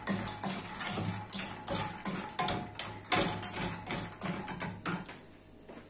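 Wooden spoon stirring fried bread cubes in a stainless steel pot, with irregular knocks and scrapes against the metal that stop about five seconds in.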